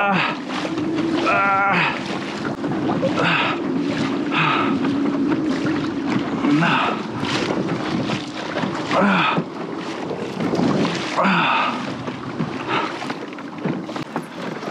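Water rushing and splashing against the hull of a fishing kayak being towed fast by a hooked fish, in repeated surges every second or two, with wind buffeting the microphone.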